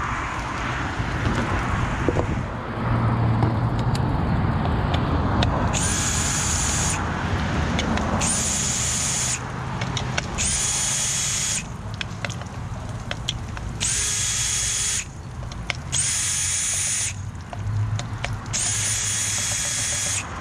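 Power drill-driver backing out the bonnet screws of a 2-inch Hunter ICV irrigation valve. It runs in six short bursts of about a second each, starting about six seconds in, with a steady high whine on each run.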